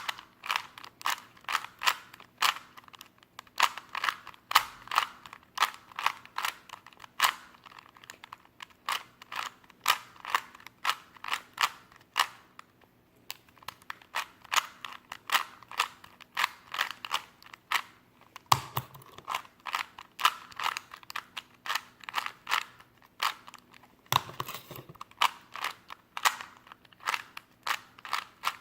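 Plastic Rubik's Cube being turned by hand in quick runs: rapid clicking of the layers snapping round, broken by short pauses.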